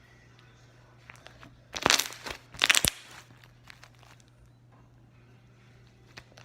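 Slime being squished and pressed by hands, with two loud crackling squelches about two seconds in and again just under a second later, and a few small clicks and pops around them.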